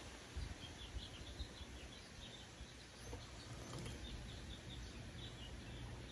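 Quiet outdoor ambience: small birds chirping faintly and repeatedly in the background, over a low rumble of wind or handling on the microphone.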